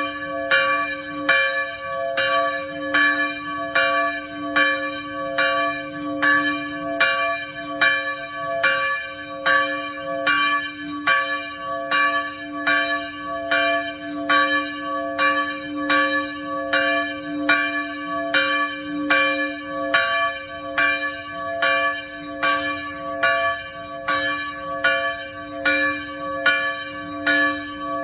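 Church bell rung over and over at a steady, quick pace, a bit more than one stroke a second, each stroke ringing on into the next over a continuous low hum note.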